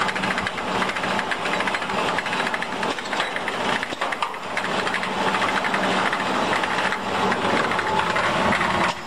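Four-head spiral scourer making machine running, its heads knitting stainless steel wire into scourer balls: a steady mechanical hum under a fast, even clatter.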